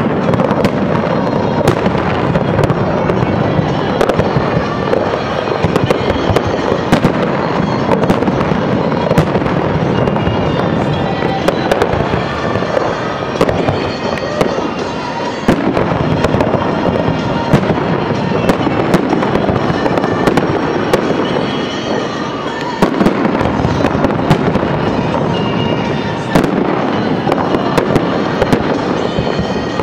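Fireworks display at full pace: aerial shells bursting overhead with many sharp bangs and pops in quick succession and no break between them.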